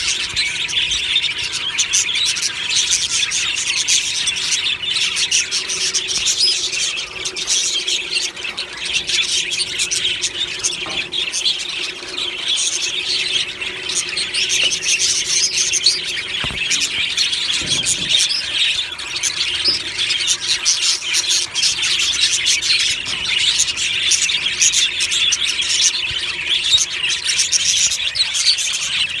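Flock of budgerigars chirping and warbling together in a dense, unbroken chatter.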